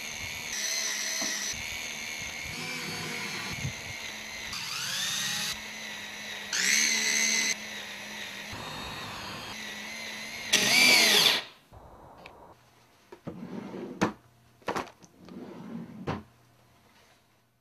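CEL Li-ion MINIdriver cordless screwdriver whirring in several bursts, its pitch rising and falling as it speeds up and slows while driving a long screw into timber, loudest in a short burst about eleven seconds in. It then stops abruptly, and a few sharp clicks and knocks follow.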